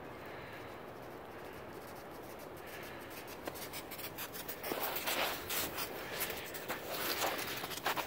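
Footsteps crunching in crusted, icy snow close by, starting about three seconds in and growing louder and denser, over a steady faint hiss: a dog's paws and a walker's steps on the trail.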